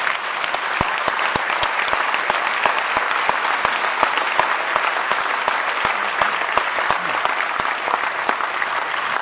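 Audience applauding, a dense, steady clapping louder than the talk around it.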